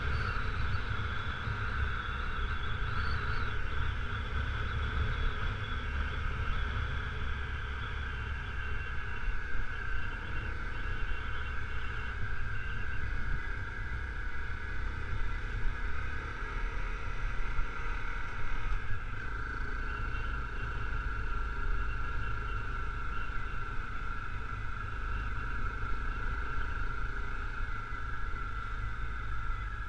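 Honda CRF250L's single-cylinder four-stroke engine running steadily while riding a gravel road, with wind rumble on the microphone.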